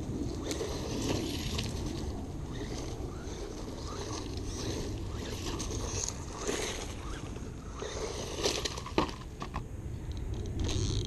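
Exceed RC Magnet 1/16-scale electric truck, driven by an RC380 brushed motor, running over bare dirt, twigs and roots: a steady rushing noise with scattered ticks and crackles, and a sharper click about nine seconds in.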